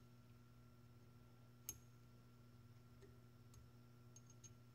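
Faint, sparse small metal clicks, the clearest about two seconds in, from a hex key turning and seating the set screws of an adjustable gas block on an AR-15 barrel as they are tightened down. A steady low hum lies underneath.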